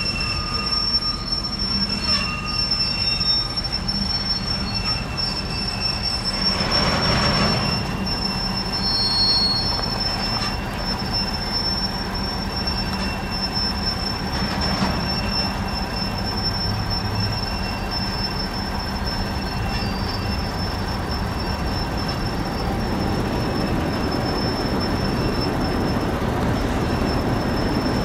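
Norfolk Southern manifest freight train's covered hopper cars rolling past, steel wheels squealing on the rails in a steady high tone, with shorter squeals coming and going over the low rumble of the cars.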